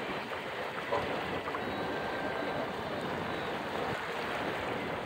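Steady rush of water and wind as a felucca sails along, with one light knock about a second in.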